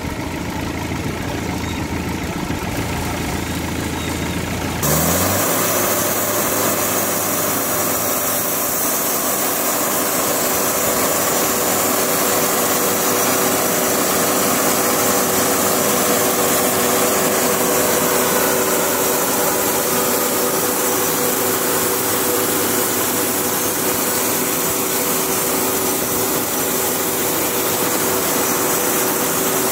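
Portable band sawmill: its engine idles, then about five seconds in revs up and the band blade bites into a teak log, giving a loud, steady sawing hiss with a constant whine as the saw head travels along the cut.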